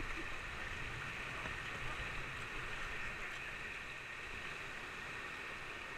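River rapids rushing steadily around a kayak in the current.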